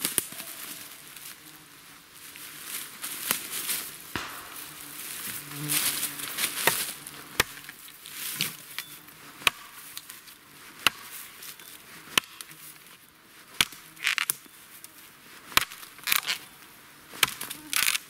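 Small hatchet chopping at a thin birch pole, trimming it into a shovel handle: sharp, separate chops at irregular intervals, roughly one a second, with rustling of the pole and brush between strokes.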